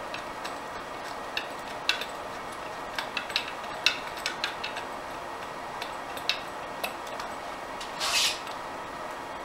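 Light metallic clicks and clinks at an irregular pace as a bolt is worked out of a Jeep AX5 transmission case by hand, without the impact gun. A short scraping clatter comes a little after eight seconds in, over a steady low hum.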